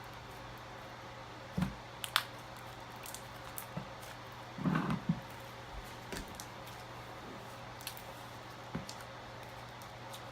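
Slime being handled: scattered small clicks and pops, with one longer squish about five seconds in, over a faint steady hum.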